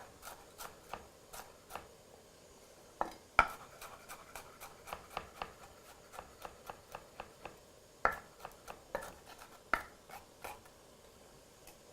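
Kitchen knife chopping on a cutting board: a quick, uneven run of light taps, about three a second, with a few louder knocks.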